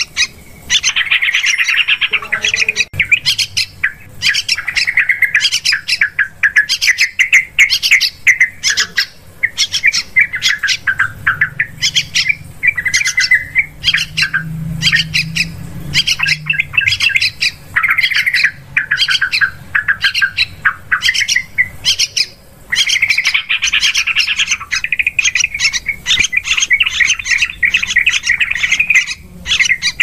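Yellow-vented bulbuls (trucukan) calling in a dense, almost unbroken run of quick chattering notes with brief pauses: a bird-lure (pikat) recording meant to draw birds in.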